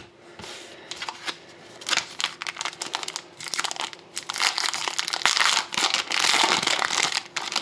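Foil wrapper of a Panini Rookie Anthology hockey card pack crinkling as it is handled and opened: an irregular crackle that gets busier and louder about halfway through.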